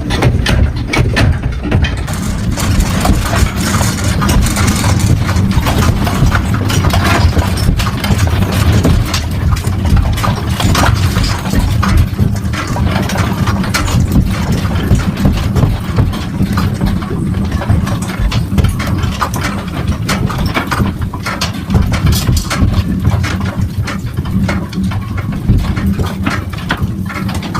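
Continuous rattling and clattering over a steady low rumble as the room is shaken by a strong earthquake.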